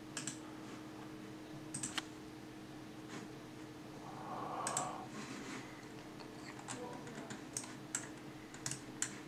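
Faint, scattered clicks and taps, about a dozen at uneven intervals, over a steady low hum, with a soft rustle about halfway through.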